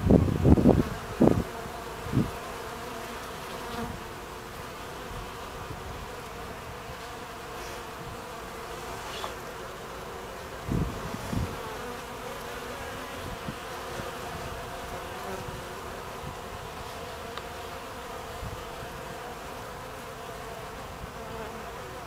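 Buckfast honeybees buzzing at the hive entrance: a steady hum of many bees flying in and out. A few short low bumps come in the first couple of seconds and twice more around the middle.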